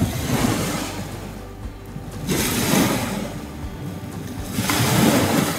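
Background music over small lake waves washing onto a gravel shore, with two surges of surf that swell and fade.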